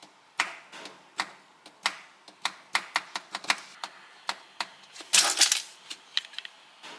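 Small plastic LEGO bricks being handled, a quick uneven series of sharp clicks and clatters. The clicks are densest about five seconds in.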